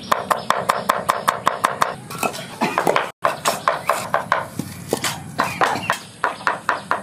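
A kitchen knife chopping garlic on a wooden cutting board in quick, even strokes, about six a second, stopping about two seconds in. After a short break, slower, irregular knocks follow as bricks are set down on a hard floor.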